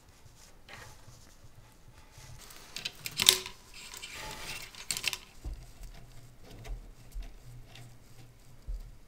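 Handling noises as a BLTouch sensor's wiring lead is routed and the sensor is held up to its mounting bracket: rustling and small clicks, with one sharp click about three seconds in and some low thumps in the second half.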